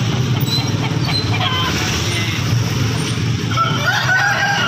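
Steady rumble of road traffic, with roosters calling over it; one long, drawn-out call starts about three and a half seconds in.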